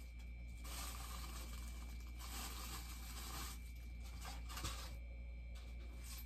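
Packaging of a bobblehead box being opened and handled: rustling and tearing in a few stretches of about a second each, with a short knock about two-thirds of the way through.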